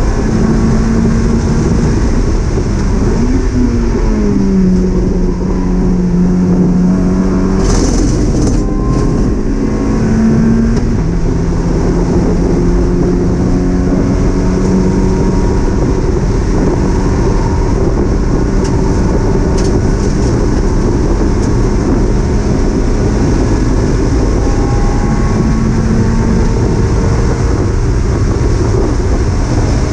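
Mazda MX-5 race car's four-cylinder engine heard from inside the cabin at racing speed, its note rising, dropping and stepping with throttle and gear changes, over steady road and wind noise. A brief rattle of clicks about eight seconds in.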